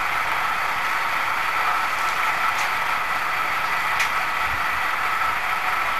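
An engine running steadily at a constant speed, with a high, even whine. Two faint clicks come in the middle.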